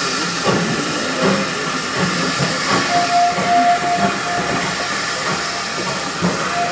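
Steam locomotive pulling a train away: exhaust beats over a continuous hiss of escaping steam from its cylinder drain cocks. A thin, steady high tone sounds for about a second, roughly three seconds in, and starts again near the end.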